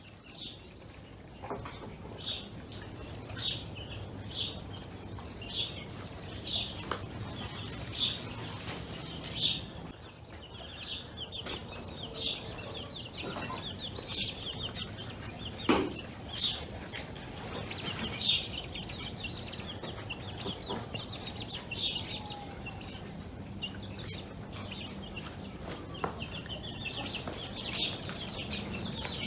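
Farmyard birds: short high chirps repeating about once every second or so over a steady chatter of smaller chirps.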